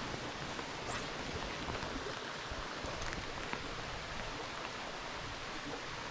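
Steady, even rush of a flowing creek, with a couple of faint ticks.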